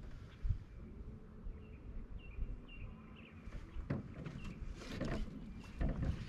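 Outdoor ambience with a run of short high chirps, then a few louder rustling or scraping bursts.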